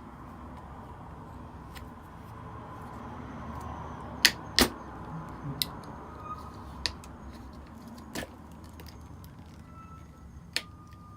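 A handful of sharp, irregular clicks and cracks as a pry tool works at the plastic seam of an Apple 87W USB-C power adapter's case. The case is sealed tight and resists opening.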